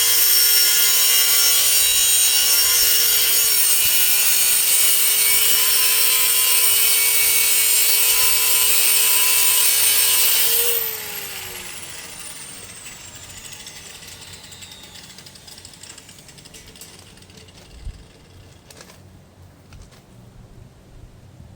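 Hammerhead 6-amp 4.5-inch electric angle grinder running at full speed with a steady high whine while cutting a steel chain-link fence post. About eleven seconds in it is switched off, and the whine falls in pitch as the disc spins down.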